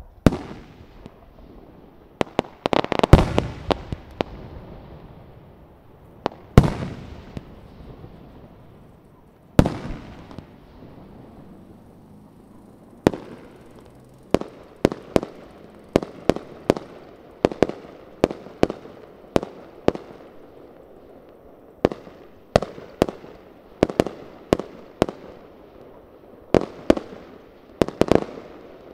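Aerial fireworks shells bursting: a few big booms with long echoing tails in the first ten seconds, then a quick run of sharper bangs, roughly two a second.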